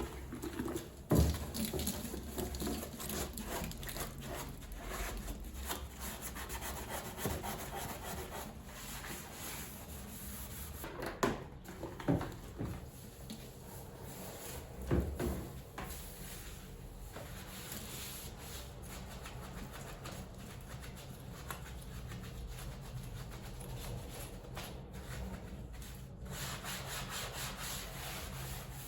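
Irregular rubbing and scrubbing sounds, with a few knocks about a second in and again around eleven to fifteen seconds in.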